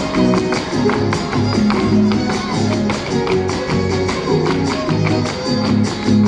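Huapango (son huasteco) played live by a huasteco string trio: a violin melody with slides over strummed jarana and huapanguera. Dense, quick percussive strokes run through it, fitting the dancers' zapateado footwork on the stage.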